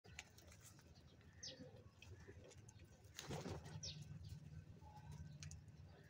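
Faint bird sounds from a flock of house crows feeding at a bowl of grain: a few short, high chirps, with a brief louder rustle a little after three seconds in.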